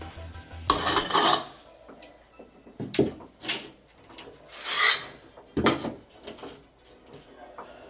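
Notched steel trowel scraping and combing wet thinset mortar across the floor in a series of separate strokes, the longest about a second in.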